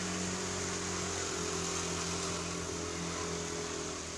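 Vehicle engine running with a steady low hum over an even hiss.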